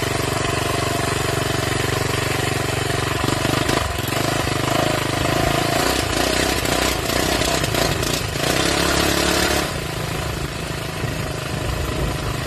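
Minibike engine running under way, steady at first, then louder and working harder from about three seconds in before easing back after about ten seconds.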